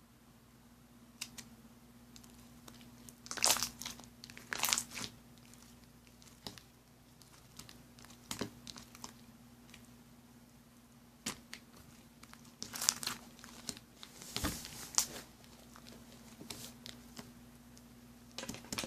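Scattered rustling and crinkling handling noises with a few sharp clicks, loudest in two clusters a few seconds in and past the middle, over a faint steady hum.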